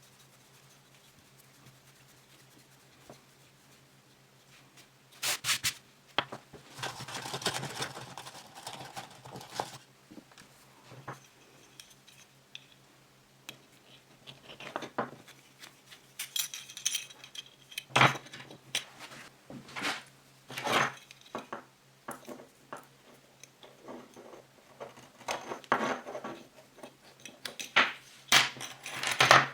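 Light clinks, knocks and brief scraping of small hard objects being handled. The first few seconds are near silent; after that the sounds come in scattered clusters, with a longer stretch of scraping early on.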